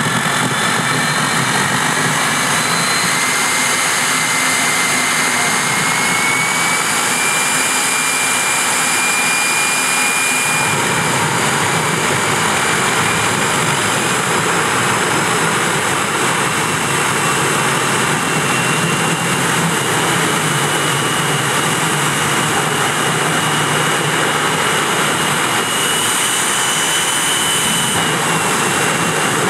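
Jet truck's Allison J33 turbojet engine running, a loud steady jet roar. A whine in it rises in pitch over the first nine seconds or so, and the roar fills out deeper about ten seconds in.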